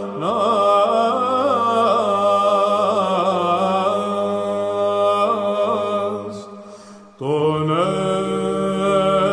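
Byzantine chant in Tone 4 legetos: a male solo chanter sings an ornamented melismatic line over a steady held drone (ison). The phrase dies away about six seconds in, and after a brief breath a new phrase begins with the drone moved to a higher pitch.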